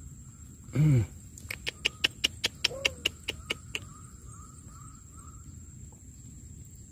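Animal calls: a short, loud call falling in pitch about a second in, then a quick run of about a dozen sharp clicking notes over about two seconds, with a faint steady high insect tone behind.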